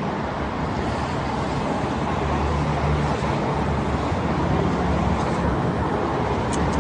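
Steady outdoor rumble and hiss with a low, even drone underneath. A few short, sharp crackles come near the end.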